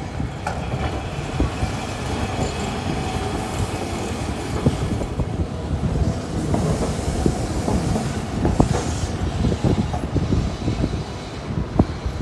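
Hiroshima Electric Railway street trams running slowly over curved track and points: the wheels knock and clatter irregularly over the switch and rail joints, with a faint wheel squeal on the curve during the first few seconds.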